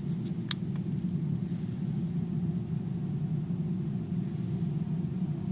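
A steady low whir from the car with the ignition switched on but the engine not started, powering the glow plugs, and one sharp click about half a second in.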